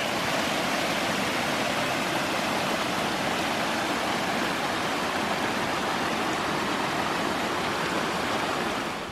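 Small alpine mountain stream cascading down a rocky channel: a steady rush of falling water.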